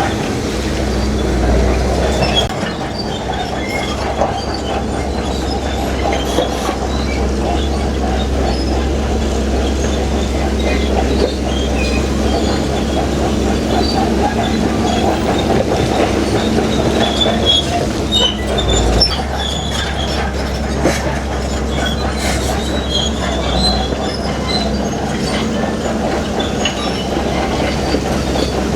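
Heavy crawler bulldozer pushing rock: its diesel engine running steadily under load, with the metallic squealing and clanking of its steel tracks.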